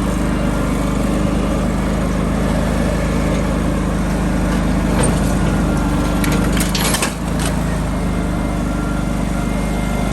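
An engine running steadily throughout, with a few short metallic clanks about halfway through.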